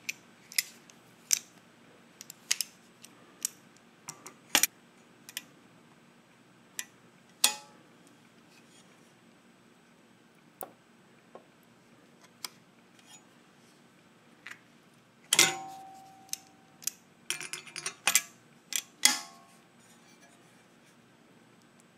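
Metal clicks and clanks as Vise-Grip locking pliers are clamped onto and worked against a thin steel tab held in a bench vise. The strikes are scattered, a few of them ringing briefly, with a busy run of them from about 15 s to 19 s in, led by the loudest, ringing clank.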